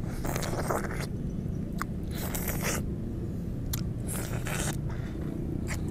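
Juicy orange segments being bitten and sucked: wet mouth sounds in three short bursts, with a few sharp clicks in between.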